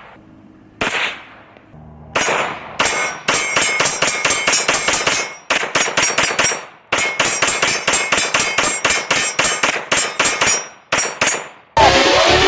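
A 9mm competition pistol is fired at steel targets, each hit ringing out with a metallic clang. A few single shots come first, then two fast strings of shots with a short pause between them. Music comes in near the end.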